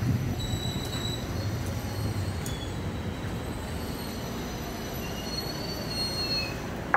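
KRL Commuter Line electric train, an ex-Tokyo Metro 6000 series set, pulling in along the platform and braking to a stop. A steady low rumble is overlaid with thin high squeals from the wheels and brakes, one of them dropping slightly in pitch near the end.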